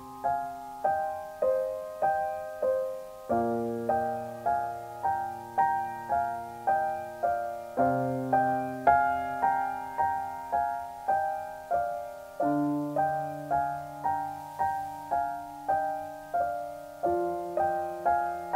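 Gentle piano background music: a repeating pattern of notes about twice a second, each fading away, over low notes that change every few seconds.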